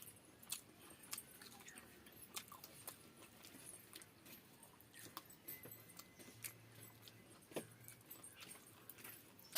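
Close-miked eating: faint, irregular wet clicks of chewing and lip-smacking, a few a second, as pakhala (water rice) and fried fish are eaten by hand.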